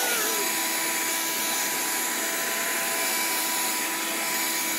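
Small Shark vacuum cleaner running steadily: an even whirring hiss with a faint steady whine in it.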